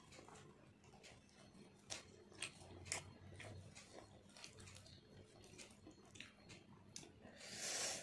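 Quiet eating sounds: fingers tearing puffed luchi and dipping it into mutton curry, with soft mouth clicks and chewing smacks scattered through. A brief louder rush of noise comes near the end.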